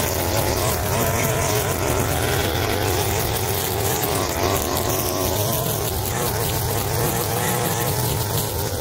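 Stihl FS 220 brushcutter's two-stroke engine running steadily.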